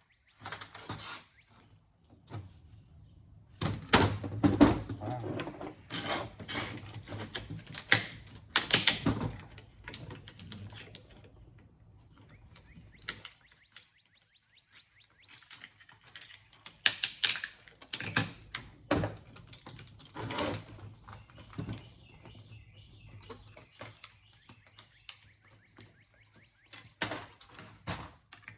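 Hand cutters and prying at the metal chassis and circuit board of a scrapped home theater unit: irregular snaps, clicks and knocks, coming in busy clusters with the loudest stretches about four to nine seconds in and again around seventeen to twenty-one seconds.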